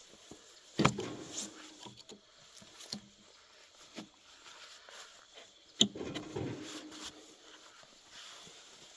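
Quiet, with a few scattered sharp knocks and clicks, the loudest about a second in and about six seconds in.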